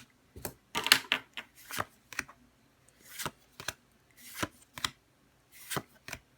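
A Pokémon booster pack and its trading cards being handled as the pack is opened and the cards are slid through, giving about a dozen short, crisp rustles and flicks at an uneven pace.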